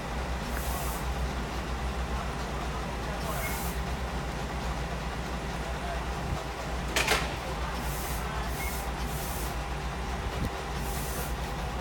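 Diesel engine of a stationary railway catenary maintenance car idling steadily, with a short sharp hiss about seven seconds in, typical of a compressed-air release.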